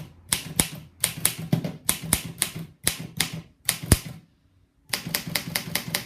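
Imperial Good Companion portable typewriter being typed on: sharp key strikes in quick runs of several a second, broken by two short pauses.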